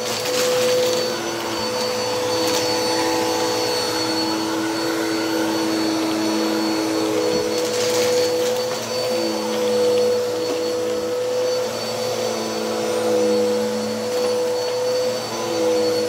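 Bissell CleanView upright vacuum running on carpet, its motor a steady hum whose pitch shifts slightly as it is pushed back and forth. A few brief crackles come as debris is sucked up through the brushroll.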